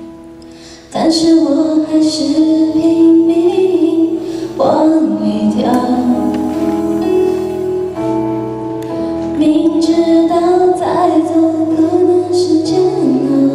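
A woman singing a Mandarin pop song into a handheld microphone over instrumental accompaniment. Her voice comes in about a second in after a quieter instrumental moment, in long held phrases.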